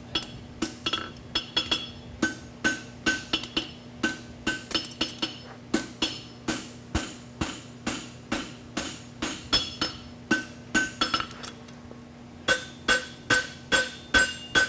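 Farrier's hammer striking a red-hot steel horseshoe on an anvil in steady blows, about three a second, each with a bright metallic ring, with a short pause about two-thirds of the way through. A steady low hum runs underneath.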